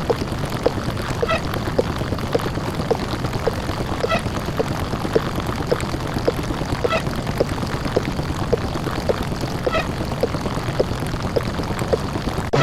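Heavily distorted ('deep-fried') microwave oven sound effect: a steady, noisy running hum with faint ticks about two a second.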